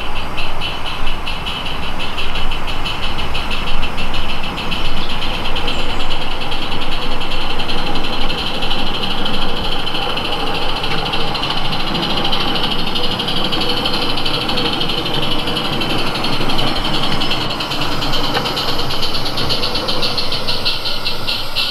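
Small live-steam garden railway locomotive running under steam, its exhaust beating quickly and evenly over a steady hiss as it approaches with its train of coaches.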